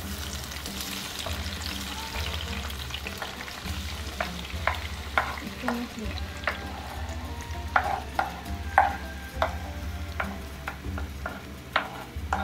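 Chopped fresh tomatoes sizzling as they are scraped off a wooden cutting board with a spoon into a hot oiled frying pan, with many sharp clicks and taps of the spoon against board and pan. It is the start of a fresh tomato sauce.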